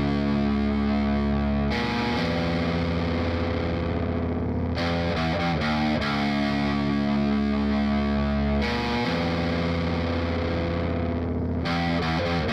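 Heavily distorted electric guitar playing long, held chords that change every few seconds, part of a hardcore punk song.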